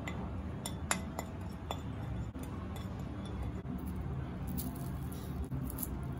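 Steel spoon clinking and scraping against a ceramic plate while mixing spice powders, with a few sharp clinks in the first two seconds over a steady low hum.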